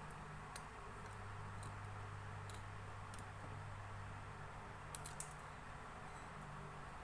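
Faint, irregular light clicks and taps of small tools working on a Huawei Y6s smartphone being taken apart, over a steady low hum. Two sharper clicks come close together about five seconds in.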